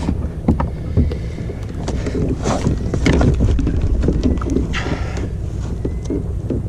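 Wind rumbling on the microphone, with scattered knocks and clicks from the gaff and fish being handled on a plastic kayak.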